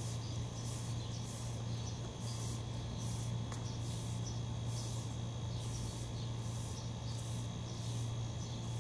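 Broom sweeping a paved floor in steady strokes, a soft swish about twice a second, over a steady low hum.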